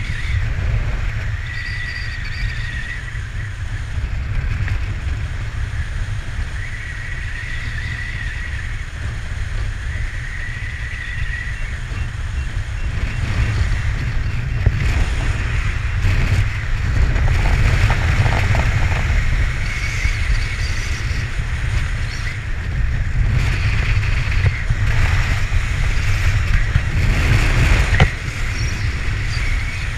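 Freefall wind buffeting a helmet camera's microphone during a sit-fly skydive: a constant deep rumble with hiss that grows louder from about halfway through. A faint thin whistle comes and goes.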